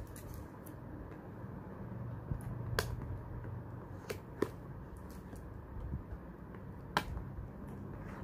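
Fingers picking at and peeling the seal stickers off a cardboard watch box: a few sharp clicks and ticks, the loudest about three seconds in and again near seven seconds, over a low steady hum.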